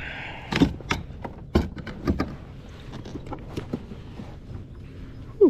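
Scattered knocks and clatter of fishing gear and a measuring board being handled against a plastic kayak hull. Near the end comes a brief sliding tone that falls in pitch, the loudest moment.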